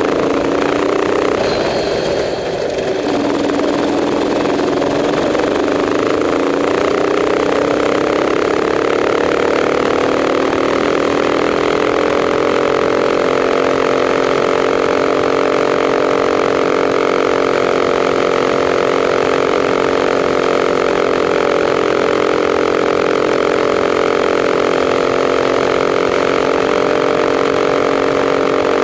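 Racing kart engine heard from onboard, at low revs for the first few seconds with a brief dip, then climbing steadily in pitch for about eight seconds and holding a steady high pitch at full throttle along the straight.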